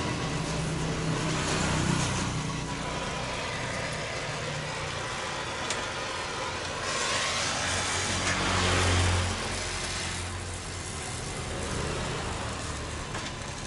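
Oxy-fuel gas torch hissing as it heats and welds a motorcycle muffler, with a low engine-like hum underneath that swells for a couple of seconds past the middle.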